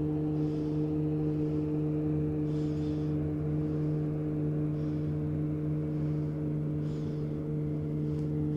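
A boat's small electric motor humming steadily, a constant low drone made of a few steady tones.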